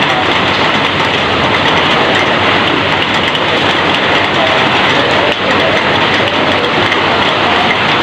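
Heavy rain falling steadily on a corrugated roof and streaming off its edge: a loud, dense, even hiss.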